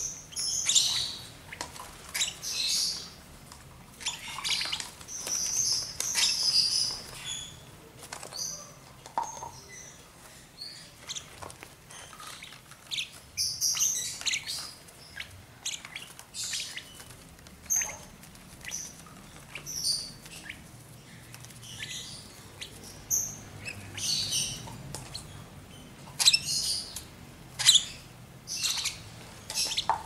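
Young lovebird chicks giving many short, high-pitched chirping calls, the begging calls of chicks during syringe hand-feeding.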